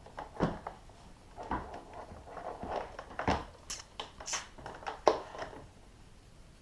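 Scattered clicks, taps and rustling of hands handling a power cord and a Romex cable connector, stopping about five and a half seconds in.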